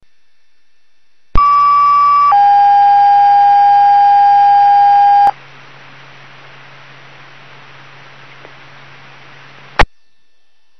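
Fire dispatch two-tone alert heard through a radio scanner: a higher steady tone for about a second, then a lower steady tone held about three seconds. The open channel then hisses with a low hum for about four seconds and ends in a sharp click as the transmission drops.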